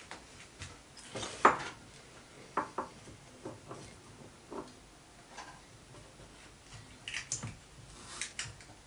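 Light metallic clinks and taps as copper tubes and a wire holding clamp are handled against a small brass boiler gripped in a steel vise, setting up a joint for silver soldering. The clicks are scattered and irregular, with the sharpest about a second and a half in and a small cluster near the end.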